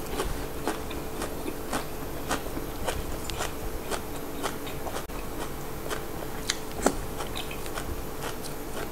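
Close-up chewing of fresh raw vegetables, with crisp crunching clicks scattered irregularly through it.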